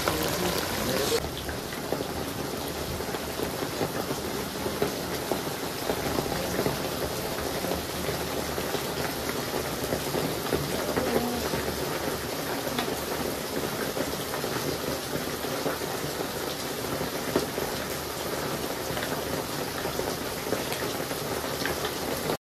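Steady rain falling, a continuous patter of drops. The sound shifts abruptly about a second in and cuts off suddenly near the end.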